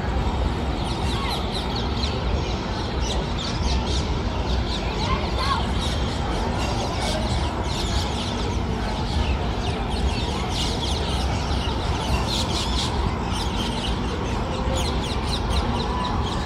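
Birds chirping busily in many short, high calls over a steady low rumble of background noise.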